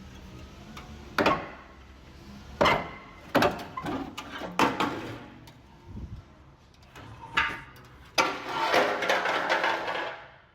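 A series of separate knocks and clanks, then a longer rattling clatter starting about eight seconds in and stopping suddenly.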